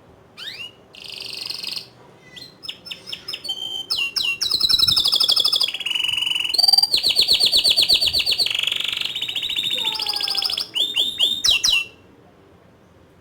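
Domestic canary singing a long song of fast rolling trills and sharp high notes, loudest in the middle stretch and stopping shortly before the end.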